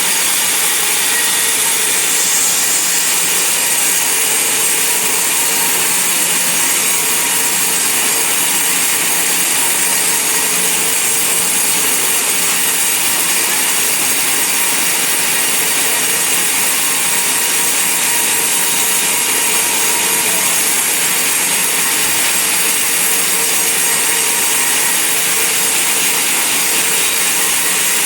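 Band sawmill cutting through a large log: a steady, unbroken hiss of the blade in the wood.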